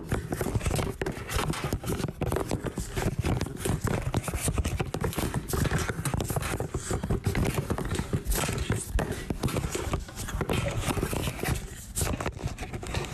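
Loud, continuous rapid rubbing and knocking from a phone's microphone and a wired earphone mic being jostled hard as a man thrashes about.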